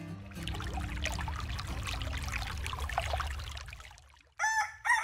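Flowing water, like a small stream running, for about four seconds and then fading. Near the end a rooster starts crowing loudly.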